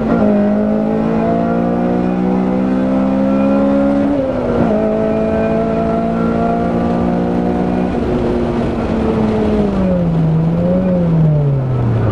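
Car engine heard onboard at full throttle on a race track, its pitch climbing steadily, dropping at a gear change about four seconds in, then climbing again. From about eight seconds the throttle comes off and the note falls as the car slows for a corner, with one brief blip on a downshift near the end.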